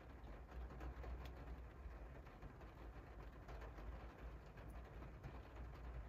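Light rain pattering faintly on a window pane: a soft steady hiss with scattered small drop ticks, over a low rumble.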